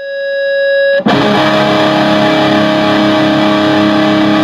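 Intro music: a single clean held note, then about a second in a heavily distorted electric guitar comes in loud, ringing out sustained chords.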